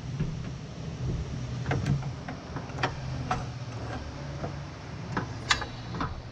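A string of sharp metallic clicks and knocks, several of them spread over a few seconds, over a low steady hum: steel workpieces being handled and set in place at a metal-cutting chop saw while the saw is not cutting.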